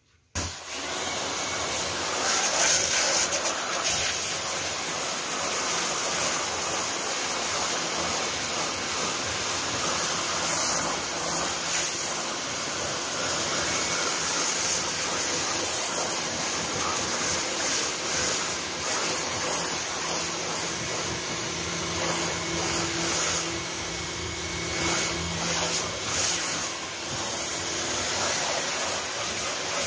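Pressure-washer jet of water spraying onto styrofoam hydroponic boards, a steady hiss of water as the dirt is blasted off the foam.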